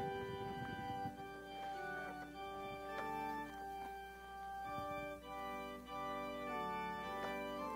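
Soft organ music: sustained chords that change every second or so, with a few faint knocks and rustles.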